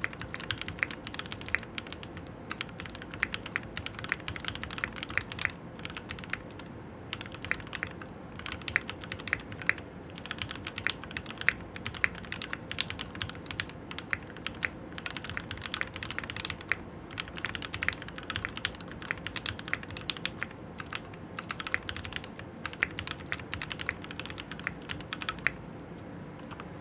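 Fast, continuous typing on a stock Keychron Q6 mechanical keyboard with Gateron G Pro Red linear switches, a dense run of key clacks with a couple of short pauses, stopping shortly before the end.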